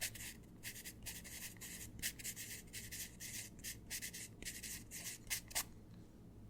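Pencil writing on paper: a quick, irregular run of short scratchy strokes, which stop about five and a half seconds in.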